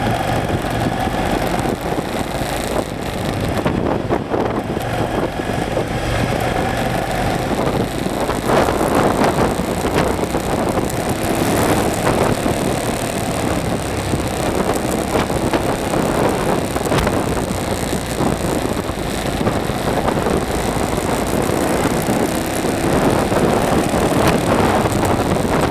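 KTM off-road motorcycle engine running while the bike is ridden, its revs rising and falling throughout.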